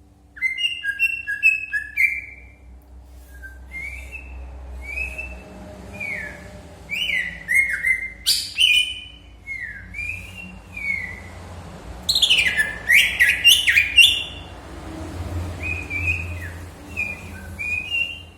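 Pet birds chirping: short whistled chirps, many falling in pitch, in uneven runs, with a denser flurry of overlapping calls about twelve seconds in.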